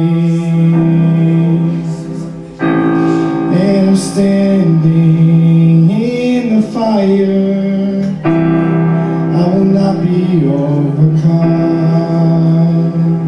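A man singing a worship song while accompanying himself on a Korg electronic keyboard, which plays held chords that change twice.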